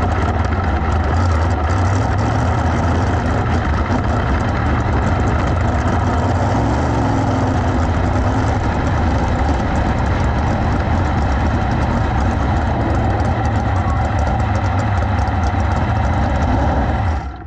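410 sprint car's methanol V8 running steadily at low revs as the car rolls slowly into the pits, heard loud and close from the cockpit.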